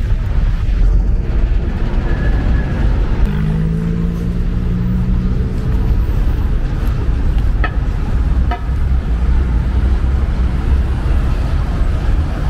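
Steady rumble of road traffic. One vehicle's engine note rises slightly in pitch for a few seconds about three seconds in, and two sharp knocks come about a second apart later on.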